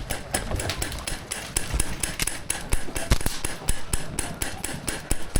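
Airsoft gunfire, with BBs striking hard surfaces: a rapid, irregular string of sharp clicks and cracks, several a second.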